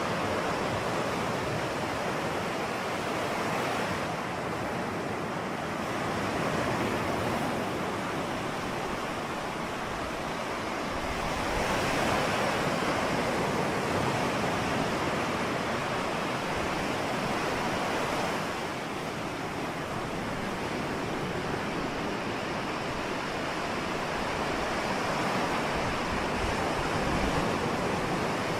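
Ocean surf: waves washing in continuously, the rush swelling and easing every several seconds.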